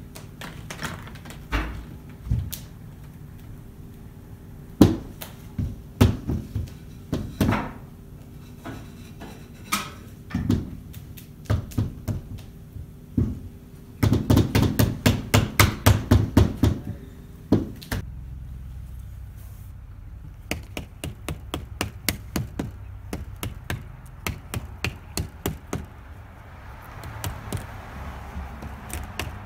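A wooden block knocked against a window frame. Scattered single knocks come first, then a quick run of knocks, then steady rapid tapping at about three to four a second.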